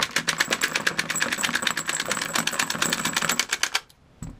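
MagLula AR-15/M16 loader-unloader being worked rapidly to strip 5.56/.223 cartridges one after another out of a full 30-round Magpul magazine: a fast, even run of sharp clicks, about nine a second, as the rounds are pushed out and land on the rubber bench mat. The clicking stops shortly before the end, and a single soft thump follows.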